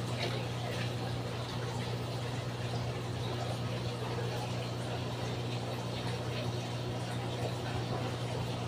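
Aquarium pump running with a steady low hum, with water bubbling and trickling in the tank.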